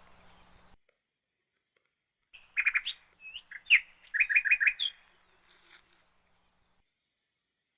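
A songbird singing in the forest: two quick phrases of four or five rapid repeated notes, each ending in a rising note, starting about two and a half seconds in and ending about five seconds in. A faint, thin, high steady tone runs behind the song.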